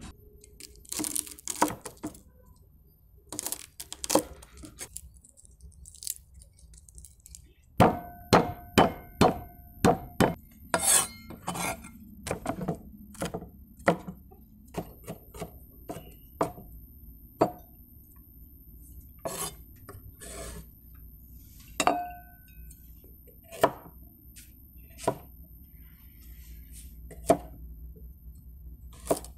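Chinese cleaver chopping on a wooden cutting board, cutting garlic and then slicing carrot: a string of sharp, irregular knocks, with a quick run of them about a third of the way in. A few of the strokes ring briefly.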